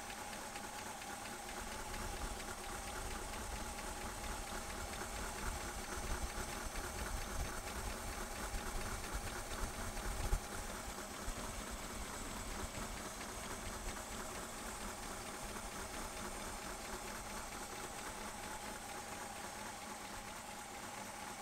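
Ford 390 FE V8 idling with its valve covers off: a steady rapid clatter from the valvetrain and a wet, hissing splash of oil flowing over the rocker arms. There is one brief louder clack about ten seconds in.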